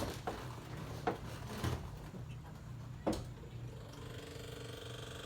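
Several light clicks and knocks over a low steady hum, then a faint steady whine that starts about four seconds in.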